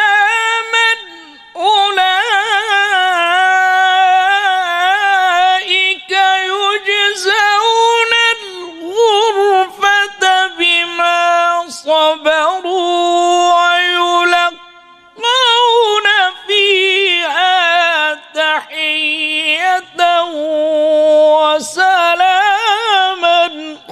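A man reciting the Quran in the melodic tajweed style over a microphone, drawing out long high notes with wavering, ornamented pitch. There are two short breaks for breath, near the start and about halfway through.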